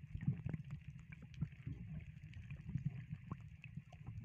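Muffled water noise picked up by a camera held under water: a steady low rumble with scattered faint clicks and knocks.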